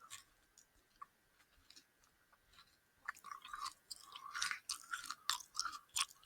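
A person chewing gummy candy fries close to a headset microphone: after a quiet first few seconds, a run of small wet mouth clicks and smacks begins about three seconds in. The candy is really crunchy and really gummy.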